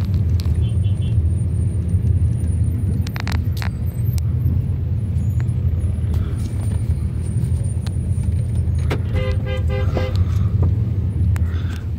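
Car running in slow traffic, heard from inside the cabin as a steady low drone of engine and road noise. Shortly before the end a car horn sounds in a few quick beeps.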